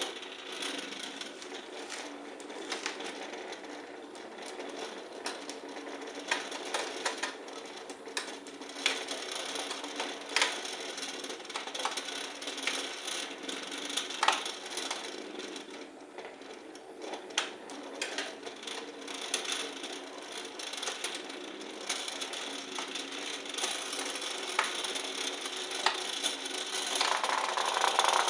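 Toys being handled, with many irregular small clicks, knocks and rattles over a steady low hum.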